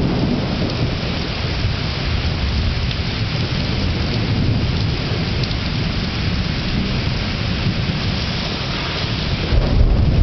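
Thunderstorm: heavy rain falling with thunder rumbling continuously underneath, the rumble swelling into a louder clap near the end.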